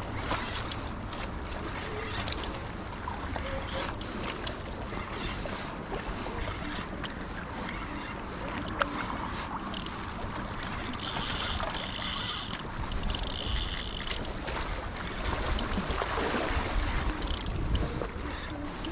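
Spinning reel buzzing in two short, loud, high-pitched spells about 11 and 13 seconds in, with a brief third one near the end, as it works against a hooked crevalle jack. Under it, a steady low rumble of wind on the microphone and scattered light clicks.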